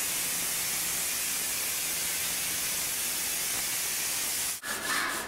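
Steady hiss of a sprayer laying disinfectant foam on a concrete kennel floor. It cuts off sharply near the end, and a short high-pitched whine follows.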